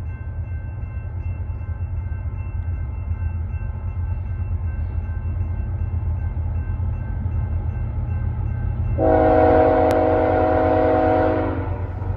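Air horn of an approaching BNSF ES44C4 freight locomotive: one long blast of several tones sounded together, starting about nine seconds in and lasting nearly three seconds, over a steady low rumble.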